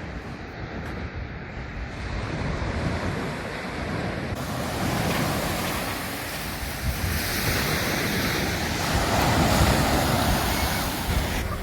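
Sea waves washing onto a beach, with wind rumbling on the microphone. The surf hiss grows louder about four seconds in and swells again a few seconds later.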